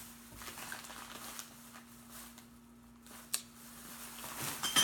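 Handling of snack packaging: faint rustles, a sharp click a little past three seconds in, and a louder crinkly rustle near the end, over a steady low hum.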